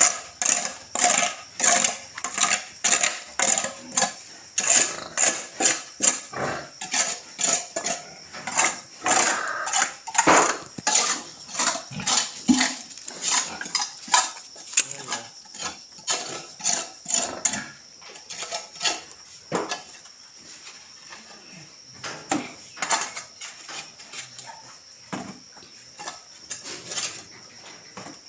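Rhythmic clattering strokes of a hand tool working a surface, about two a second, growing sparser and quieter after about 18 seconds.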